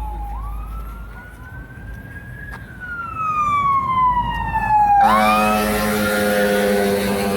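Emergency vehicle siren wailing, its pitch sliding slowly down, back up and down again. About five seconds in, a loud steady horn blast starts abruptly as the siren swoops up again.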